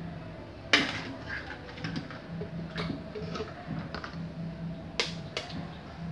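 Kitchen containers and utensils handled at the counter beside a blender jug: four sharp knocks and clicks, the loudest about a second in, with softer clatter between.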